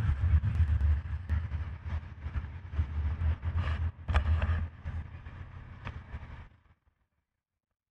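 Wind and road rumble on a boat being towed on its trailer along a road, a heavy fluctuating low rumble with scattered rattles and knocks. It cuts off suddenly about six and a half seconds in.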